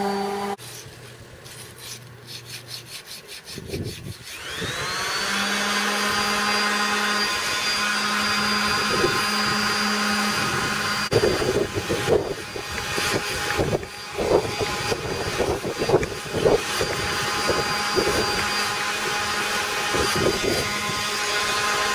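Electric power sander spinning up with a rising whine about four seconds in, then running steadily as it sands the underwater hull of a fibreglass sailboat ahead of bottom painting. Irregular louder knocks come in from about eleven seconds on.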